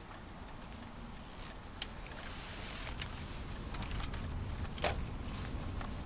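Inside a moving Toyota Alphard: low road and engine rumble, with four sharp clicks or knocks spaced about a second apart.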